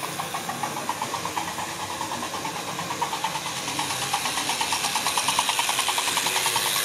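Hornby model locomotive of 46201 Princess Elizabeth running along the track, its electric motor and wheels whirring with a fast even ticking. It grows steadily louder as it comes closer.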